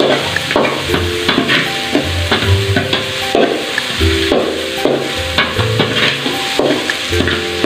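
Metal ladle stirring and scraping the bottom of an aluminum pot while chopped garlic and onion sizzle in hot oil, with scraping strokes about one or two a second.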